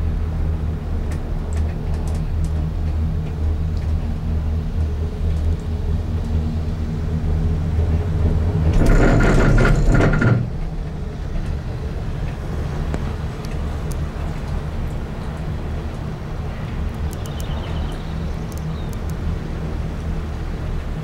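Gondola cabin riding the haul rope, a steady low rumble and hum. About halfway through there is a louder rush lasting about a second and a half, then the steady rumble resumes.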